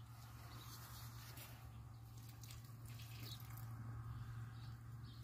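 Faint trickle of water from a garden hose into a plastic bucket, with a few light drips over a low steady hum.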